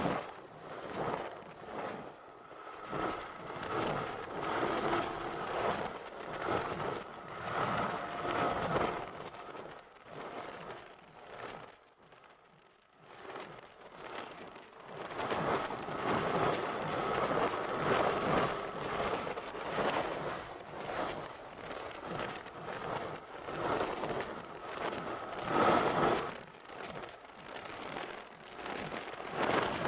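Wind buffeting the handlebar-mounted camera's microphone at riding speed on a motorcycle: a fluttering rush that swells and eases. The motorcycle's engine runs faintly underneath. The rush drops away briefly near the middle.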